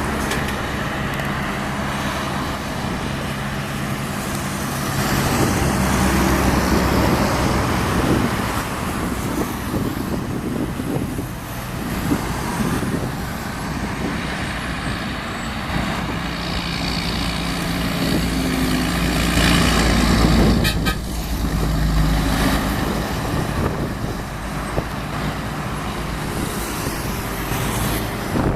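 Scania 113H truck's six-cylinder diesel engine rumbling loud through its exhaust as the truck drives past. The engine note rises and falls with the revs and is loudest about two-thirds of the way through.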